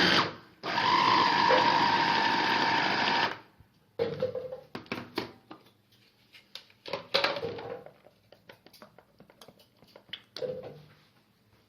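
Electric kitchen grinder's motor running at speed, blending garlic-stuffed steamed figs with olive oil into a paste. It stops about three seconds in. After that come scattered light clicks and knocks.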